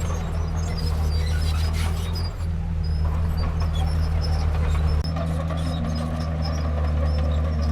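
Diesel engine of a Komatsu D31P crawler bulldozer running steadily under work, its sound changing abruptly about five seconds in.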